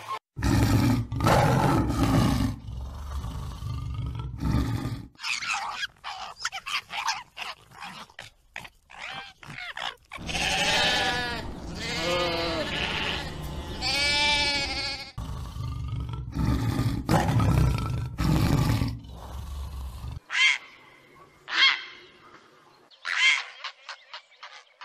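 A run of different animal calls, the clearest being a sheep bleating three long, wavering bleats about halfway through. Other loud animal calls come before it, and a few short, separate calls come near the end.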